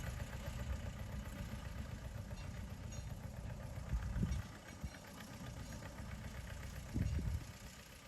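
Small diesel locomotive engine idling with a fast, even low beat. It gets quieter after about four and a half seconds. Wind buffets the microphone twice, at about four and seven seconds.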